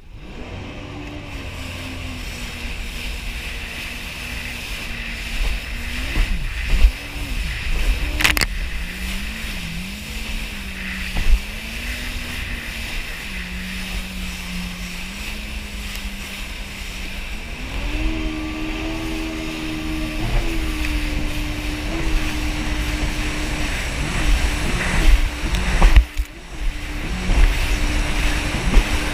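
Yamaha jet ski's engine running under way, its pitch dropping for several seconds and then rising and holding higher as the throttle changes, over a heavy rush of wind and water on the front-mounted camera's microphone. One sharp knock about eight seconds in.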